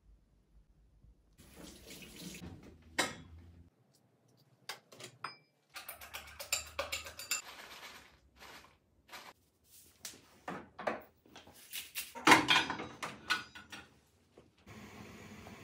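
Kitchen sounds in short cuts: dishes and a frying pan clattering, and water running at the sink. The loudest stretch is a burst of noise about three quarters of the way through.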